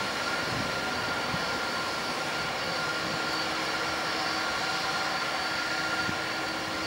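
Airbus A321-211 turbofan engines running at low taxi thrust: a steady rush with a high, even whine and no spool-up.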